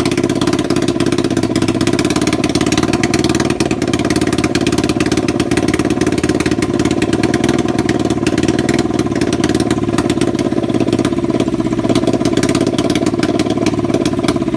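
Kawasaki Ninja 500 (EX500) parallel-twin engine idling steadily while it warms up after its first start, its carburettors not yet tuned.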